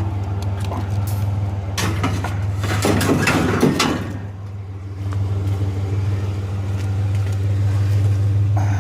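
Vehicle engine running with a steady low hum, with a burst of clattering noise about two to four seconds in.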